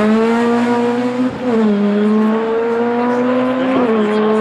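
Ford Fiesta rally car's engine accelerating hard, its pitch climbing steadily and dropping briefly at two upshifts, one about a second in and one near the end.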